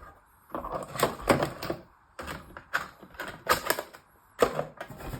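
Metal hand tools clicking and clattering in several short bursts as a 3/8-inch ratchet and its sockets are handled.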